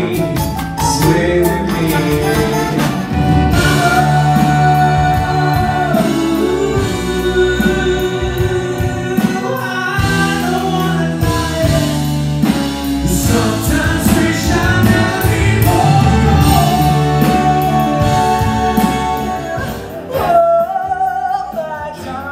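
Male vocal group singing with a live band, holding long notes with vibrato over a steady bass line. About twenty seconds in, the music changes.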